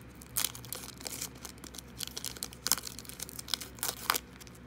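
Wrapper of a 2017-18 Panini Prestige basketball card pack crinkling and tearing as it is pulled open, in irregular sharp crackles.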